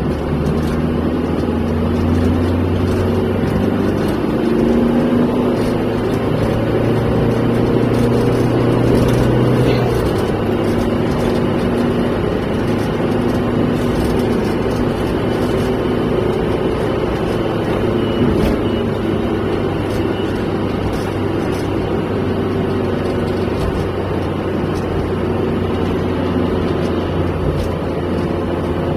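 Car engine and tyre-road noise heard from inside the cabin while driving at a steady speed, a continuous low hum.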